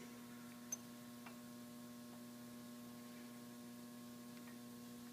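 Steady low electrical hum, with a faint sharp click under a second in and a softer one shortly after.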